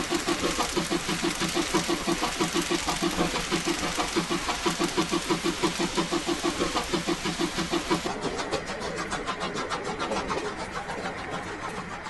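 Steam locomotive exhaust chuffing in a steady rhythm of about four beats a second over a hiss: a recorded C12 tank engine's draft sound. About eight seconds in the hiss falls away and the beats soften.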